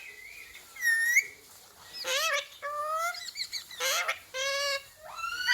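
Ringneck parrot giving a run of about six short, high-pitched calls and squawks, some gliding up or down in pitch.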